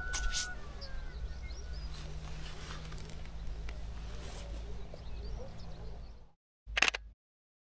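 Outdoor hillside ambience: a steady low rumble with faint, scattered bird chirps and a few short rustles of grass and clothing as a person kneels and lies down on the slope. The sound cuts off suddenly about six seconds in, followed by one brief burst of noise and then silence.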